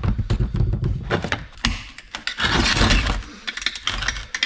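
A screwdriver prying apart a metal HVAC actuator housing, with metal and plastic parts knocking, clicking and cracking. Around two and a half seconds in there is a harsher stretch of scraping and cracking lasting most of a second.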